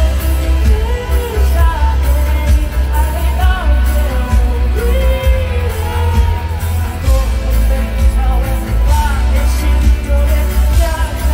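Mandarin pop song sung live by a male and a female singer over a band with a strong bass line, recorded from among the audience.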